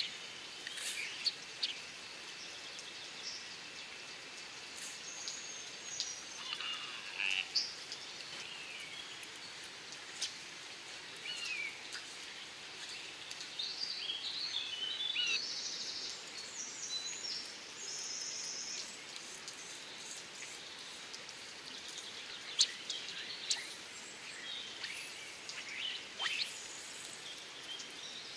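Woodland birds singing and calling in short chirps and phrases over a steady outdoor hiss. Two sharp clicks come near the end.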